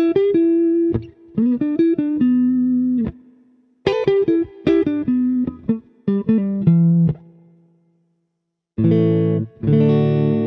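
Fender Stratocaster played clean on the neck and middle pickups together. It plays short single-note phrases with string bends, broken by brief pauses, and then rings out full chords near the end.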